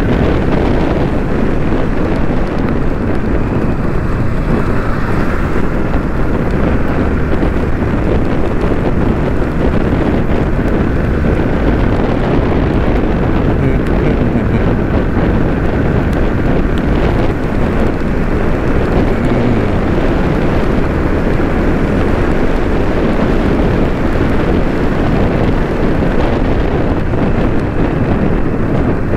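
Steady wind rush on the microphone of a moving motorcycle, with the engine and road noise running underneath.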